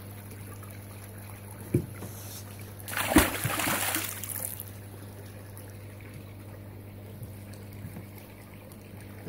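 A large koi splashing into a pond about three seconds in as it is released from a tub, with a short knock a little before it. Under this runs a steady low hum and a faint trickle of water.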